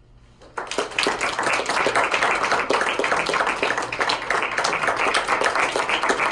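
Audience applause breaks out suddenly about half a second in and carries on, dense and steady.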